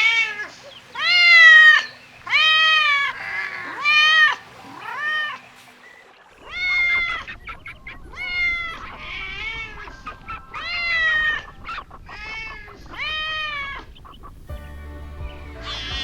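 Kittens meowing over and over, about a dozen short calls roughly one a second, each rising and falling in pitch, with a brief pause just after the middle.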